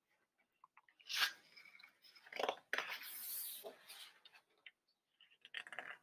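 A page of a hardcover picture book being turned by hand: soft paper rustles and handling noises, with a longer swish about three seconds in as the page sweeps over, then a few light ticks near the end.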